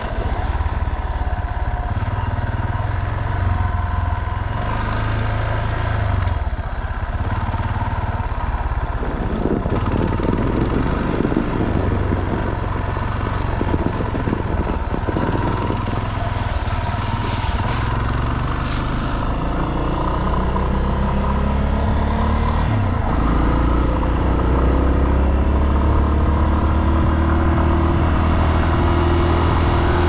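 Yamaha Serow trail bike's single-cylinder four-stroke engine running at low road speed. There is a rougher noisy patch for several seconds around the middle, and the engine pitch climbs steadily over the last third as the bike speeds up.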